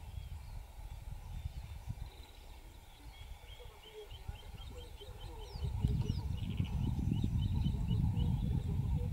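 Outdoor ambience: a bird repeating a short high chirp about three times a second, starting about three seconds in, over a low rumble that grows louder about six seconds in.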